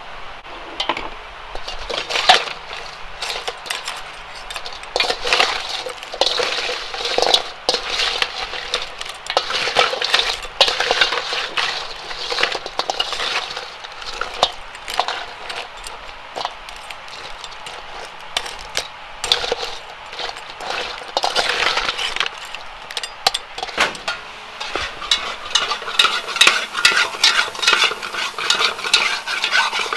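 Metal spoon clinking and scraping against a stainless steel bowl as raw blue crabs are tossed in their seasoning marinade, the shells knocking together. Near the end, a spoon stirs and scrapes curry paste in an aluminium pot on the burner.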